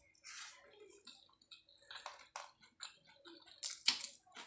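Eating by hand: chewing and wet mouth smacks, with fingers mixing rice and curry on a steel plate, heard as irregular soft clicks and one sharper click about four seconds in.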